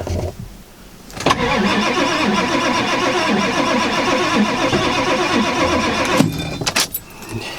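A 1995 Ford F-350's 7.3 L Power Stroke turbo diesel cranking on its starter in freezing cold for about five seconds, starting about a second in, without starting. It is a hard cold start, which the owner puts down to glow plugs not all working and the truck not being plugged in.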